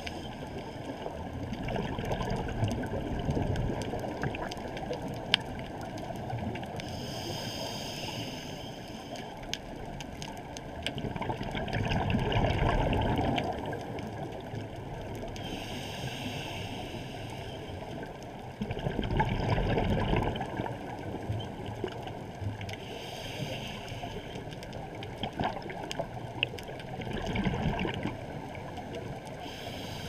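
A scuba diver breathing through a regulator, heard through an underwater camera housing. Each inhale is a short hiss and each exhale a louder burst of bubbles, about three breaths in all, over a steady underwater rumble.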